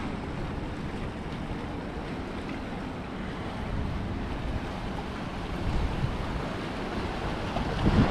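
Mediterranean sea waves washing in steadily, with wind rumbling on the microphone.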